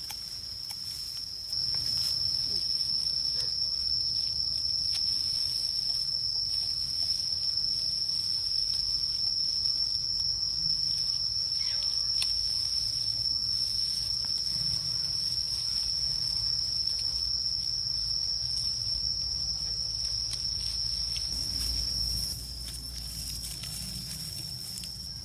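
Steady, high-pitched insect drone, one unbroken tone that grows louder a second or two in and drops back a little near the end.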